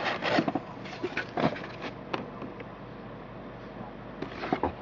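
Packaging being handled and opened: a run of crinkling, scraping strokes and small clicks in the first couple of seconds, quieter handling in the middle, and a few more scrapes near the end.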